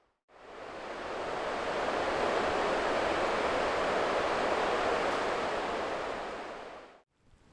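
Rushing river rapids: a steady wash of water noise that fades in at the start and fades out near the end.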